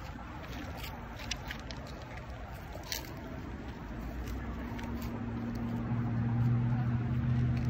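Footsteps on gravel and wooden boards, with a few sharp clicks early on, while a low engine-like hum grows louder from about halfway and becomes the loudest sound near the end.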